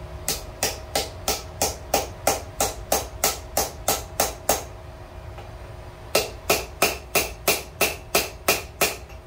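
Hand hammer striking glowing hot iron on an anvil, about three blows a second. A run of about fourteen blows is followed by a pause of about a second and a half, then a second run of about nine. The blacksmith is working a forged piece he nearly burned in the fire, trying to recover it.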